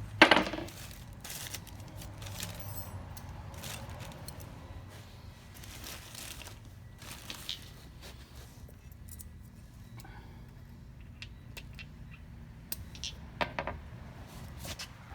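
A sharp metallic clank just after the start, then scattered light metal clinks and scrapes of air brake shoe hardware and hand tools being handled, with a few more clinks near the end.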